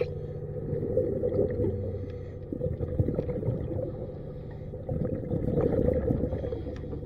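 Muffled underwater sound beneath a boat's hull: a steady low mechanical hum carried through the water, with scattered crackling and small clicks, growing louder about five seconds in.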